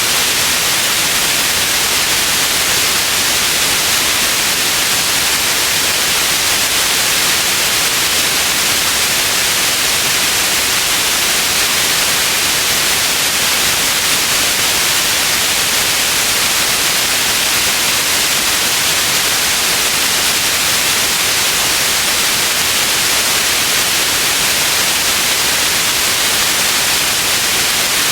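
Steady white noise, an even hiss weighted toward the high end, with no change, tone or click.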